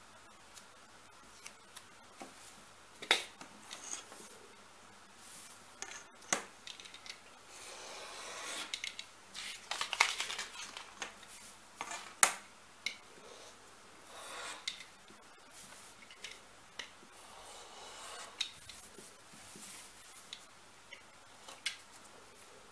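A paper pattern sheet being handled and cut with a scalpel on a cutting mat: paper sliding, rustling and scraping in several longer stretches, with scattered sharp taps and clicks.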